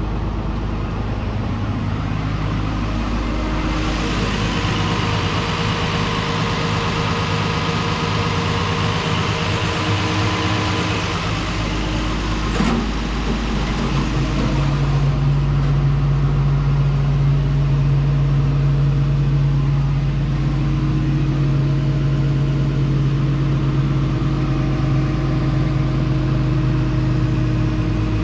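Komatsu PC210LC-11 excavator's diesel engine running steadily at idle. For several seconds in the first half a hiss rises over it, and about halfway through the engine note steps up slightly and gets a little stronger.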